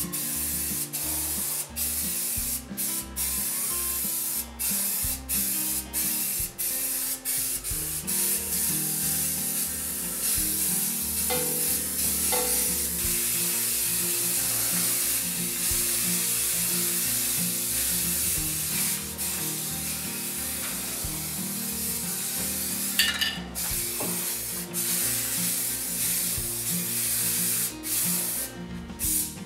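Aerosol spray paint cans hissing in repeated bursts with short breaks, running more steadily through the middle, over background music.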